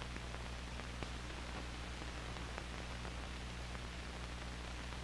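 Steady hiss and low hum with scattered faint clicks and pops, one a little louder about a second in: the surface noise of a 16mm film's optical soundtrack in a silent passage.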